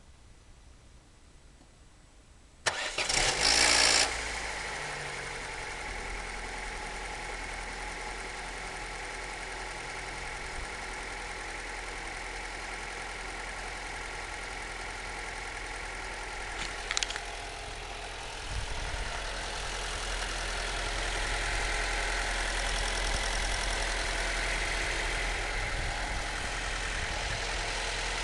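Opel Corsa C's 1.2 Z12XE four-cylinder petrol engine starting after standing a few hours: about two and a half seconds in, a loud, brief noise for about a second and a half as it cranks and catches, then a steady idle. The start-up noise is one the owner finds strange, with the timing chain and the starter as his suspects.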